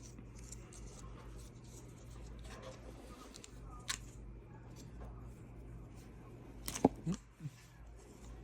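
Steady low hum with two sharp clicks or knocks, a faint one about four seconds in and a louder one about seven seconds in, followed by a brief falling sound.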